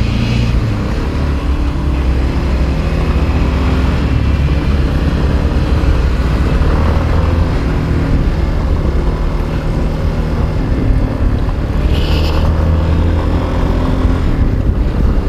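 Motorcycle engine running as the bike is ridden, its pitch shifting slightly, over a steady rush of riding noise. A brief higher-pitched sound comes about twelve seconds in.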